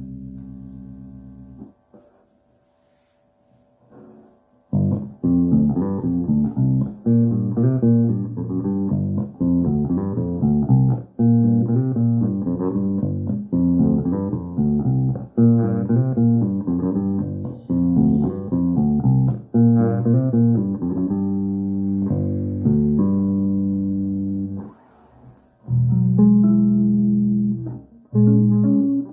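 Electric bass guitar played through a Joyo bass amplifier with its EQ set flat. A held note dies away, there is a pause of a few seconds, then a steady run of plucked notes, with a brief break near the end.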